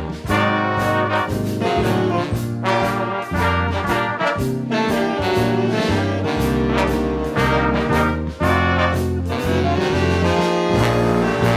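Big band playing an instrumental swing-jazz passage, the brass section to the fore, over a steady beat.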